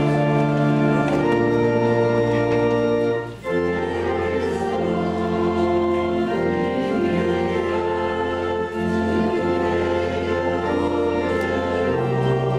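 Church organ playing a communion hymn in long held chords over a deep bass note, with a short break about three seconds in.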